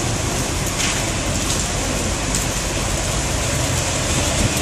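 Heavy rain falling steadily onto a flooded street, a dense even hiss with a low rumble underneath.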